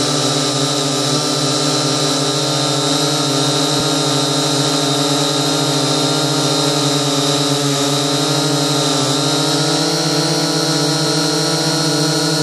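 Syma quadcopter's electric motors and propellers running in flight, a loud steady multi-toned whine picked up by a smartphone mounted on the drone. The pitch dips slightly for a moment about eight seconds in.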